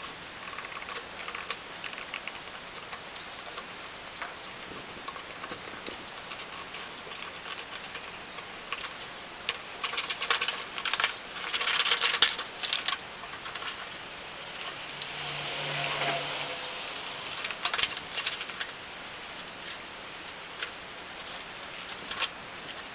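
Scissors snipping through printed semi-matte paper in short irregular clicks, with the sheet rustling and crackling as it is lifted and turned, loudest a little past the middle.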